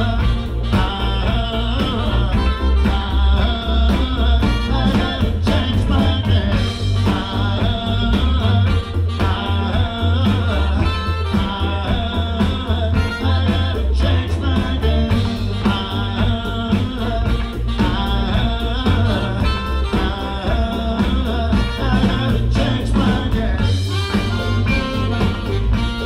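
Live blues-soul band playing loudly: trumpet and saxophones over electric guitars, keyboards, bass and a steady drum beat, with singing.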